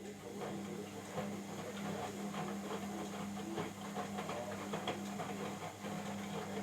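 Hotpoint Ariston WMSF 6013 washing machine running: a steady motor hum with irregular clicks and knocks over it.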